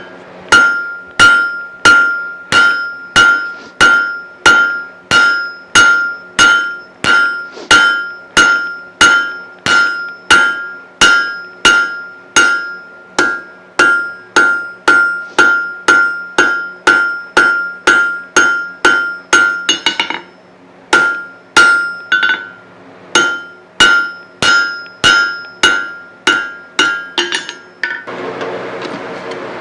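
Hammer striking hot steel on an anvil in a steady rhythm, about two blows a second, each blow ringing with a clear metallic tone. The hammering pauses briefly about two-thirds of the way through and stops near the end, over a steady low hum.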